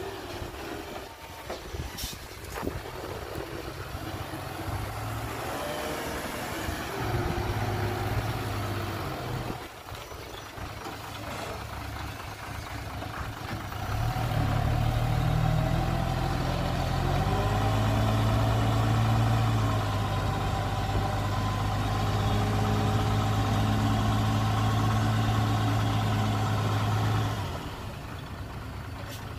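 Hyundai dump truck's diesel engine running as it backs up, then revved up and held at a steady higher speed for about thirteen seconds while the hydraulic hoist raises the loaded bed, settling back near the end.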